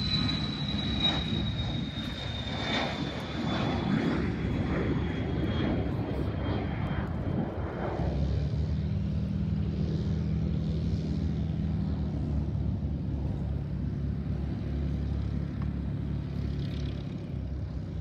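High jet-turbine whine from a small business jet climbing away, sliding slowly down in pitch and fading over the first several seconds. From about eight seconds in, a light single-engine propeller plane's engine drones steadily on the runway.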